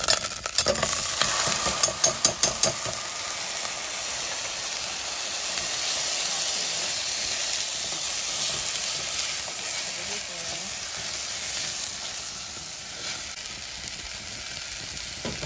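Wet, freshly rinsed calrose rice sizzling in hot olive oil in a stainless steel pan, crackling loudly for the first few seconds and then settling into a steady sizzle that slowly eases. A wooden spoon stirs and scrapes the rice against the pan.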